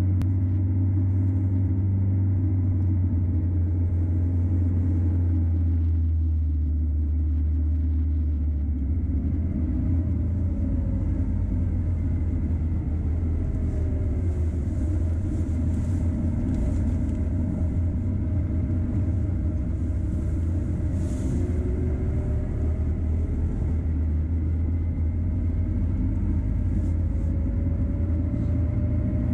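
2012 Peugeot Boxer van driving, its engine and road noise making a steady low rumble. About six seconds in the low hum turns rougher, and faint tones above it slowly rise and fall as the engine note changes.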